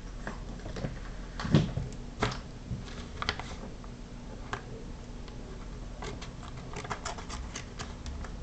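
Scattered light clicks and taps from handling a small Swiss Army knife's folding tools, with a quick run of clicks near the end, over a steady low hum.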